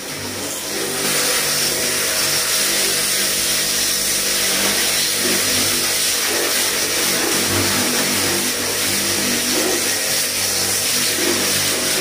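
Starq W3A portable car pressure washer running, its motor pump humming steadily under the hiss of the high-pressure water jet spraying onto a car's body panel. The sound swells over the first second and then holds steady.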